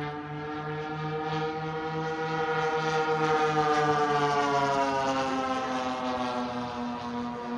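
Twin DLE 35RA single-cylinder two-stroke gasoline engines of a large-scale radio-controlled F7F Tigercat running steadily in a flyby. The drone grows louder toward a peak about three to four seconds in, and its pitch drops as the plane passes and moves away.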